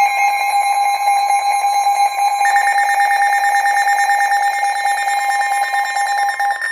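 Emergency Alert System attention signal: a loud, steady two-tone alarm, with a higher tone joining about two and a half seconds in.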